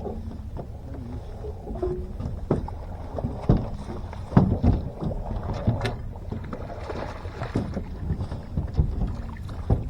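Irregular knocks and thumps on a fishing boat over a steady low rumble. The strongest thumps come about three and a half and four and a half seconds in.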